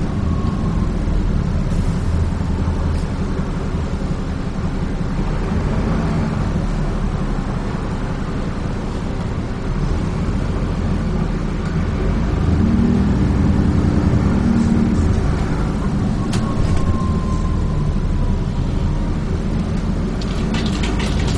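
Dennis Trident 2 double-decker bus engine running, heard from inside the bus, with the drone swelling as it pulls away about six and twelve seconds in. Light rattles and ticks from the bus body come thicker near the end.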